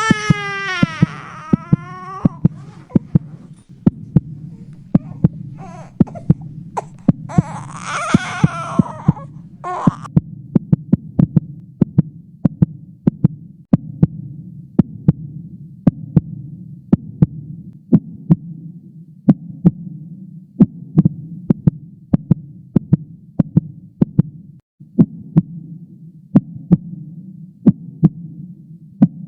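Heartbeat sound effect: regular sharp double beats over a low steady hum. A baby cries briefly at the start and again about seven seconds in.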